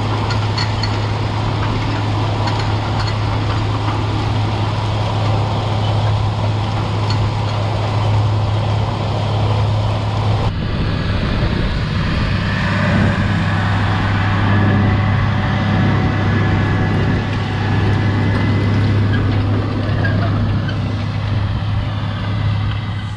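White 4-270 tractor's diesel engine running steadily under load as it pulls a strip-till bar through the field, a constant low engine drone with rattling field noise; the sound changes character about ten seconds in.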